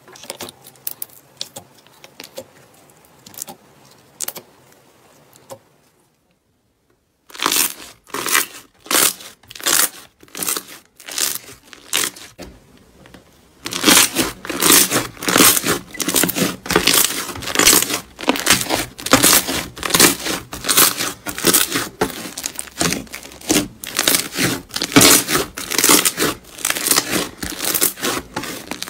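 Hands squeezing, pressing and kneading white slime, making rapid sticky crackling and popping clicks as air pockets burst. The clicks are faint at first, break off briefly about six seconds in, return in spaced strokes, and from about fourteen seconds on come as a loud, steady run of crackles.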